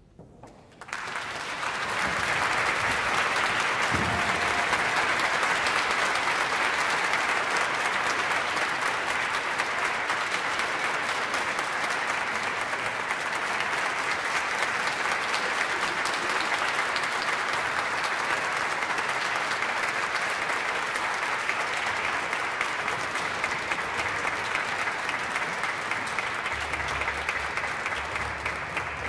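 Audience applause for a finished orchestral performance, breaking out about a second in and holding steady, easing slightly near the end.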